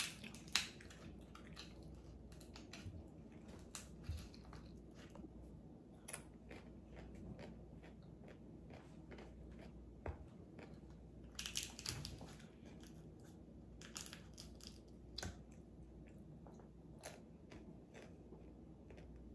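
Faint, irregular crunches and crackles of crispy air-fried pig's ear (tenga ng baboy), in clusters with gaps between them.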